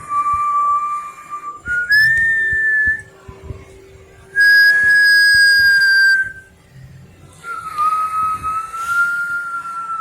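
Four long whistled notes, each held for one to two seconds with short pauses between. The third note is the loudest, and the last one rises slightly in pitch.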